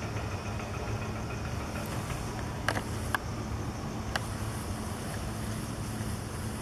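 Steady low hum, like a motor or engine running, with three short sharp clicks between about two and a half and four seconds in.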